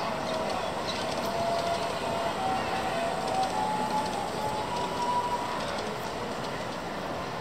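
Ride-on miniature H5-series Shinkansen train running along its narrow ground-level track with riders aboard, its wheels rolling on the rails against a steady open-air background.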